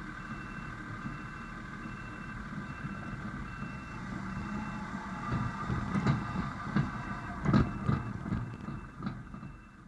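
Wolf WL80 compact wheel loader's three-cylinder Shanghai diesel engine running as the machine drives over a rough gravel yard, with clunks and knocks from about five seconds in. A faint high beep repeats steadily, nearly twice a second.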